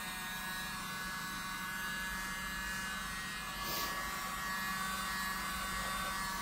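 Miniature handheld electric blower running steadily with a high motor whine, blowing dabs of silver acrylic paint across a paint pour.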